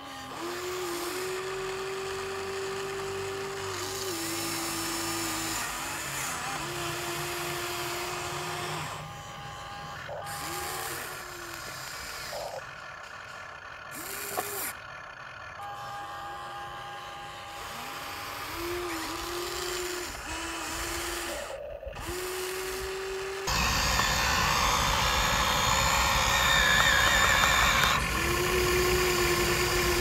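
Huina remote-control excavator's electric motors whining in short spurts of one to three seconds as the boom and bucket move, each spurt spinning up and down at its ends. About two-thirds of the way through, a louder, steady rushing noise abruptly takes over.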